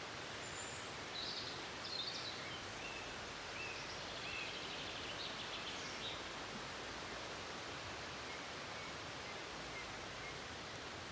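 Steady rush of falling water from a waterfall, with small birds chirping in short high calls through the first half and a few fainter calls later.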